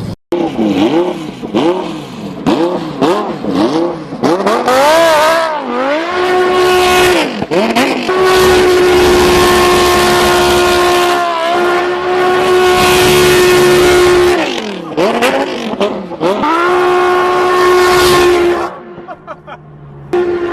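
Lamborghini sports car engine revved in a string of quick blips, then held at high revs for about ten seconds with one brief dip in the middle, before it drops away near the end.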